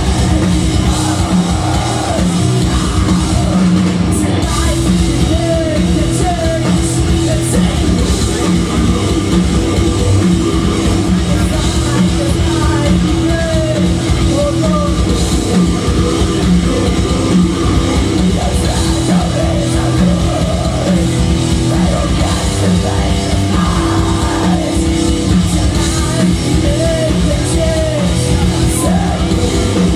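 Heavy metal band playing live: distorted electric guitars and bass over a drum kit, with a singer's vocal line coming in and out on top.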